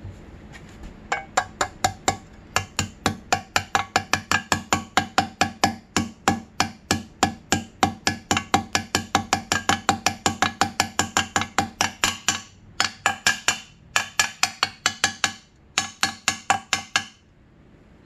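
Hammer tapping a ball bearing into the water pump bore of a 2006 Honda CRF250R's aluminium case cover: quick, ringing metal taps at about three to four a second, with short breaks near the end. The tapping goes from a low thud to a higher-pitched tink, the sign that the bearing has bottomed out in the case.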